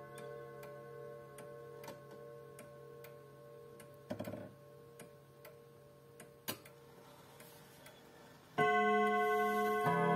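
Antique 1930s pendulum wall clock ticking about twice a second as its minute hand is turned forward by hand. The ringing of an earlier strike fades at first, and the movement gives a brief clatter of clicks about four seconds in. Near the end, as the minute hand reaches twelve, the clock starts striking the hour: two loud ringing strokes over a second apart.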